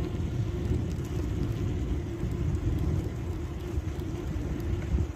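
Wind buffeting the microphone over the steady rumble of mountain bike tyres rolling over brick paving, with faint rattling ticks from the bike.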